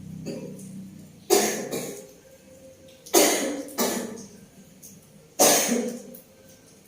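A woman coughing four times, each a sudden harsh cough that fades quickly. It is the lingering cough that has not cleared up.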